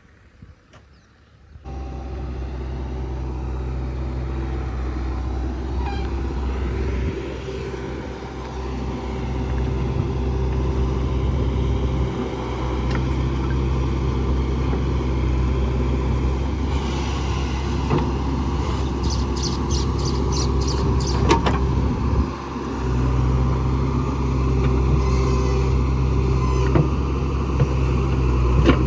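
A heavy diesel engine starts running steadily about two seconds in, with a low even hum, and grows louder for a while after that. A few clicks and knocks sound over it.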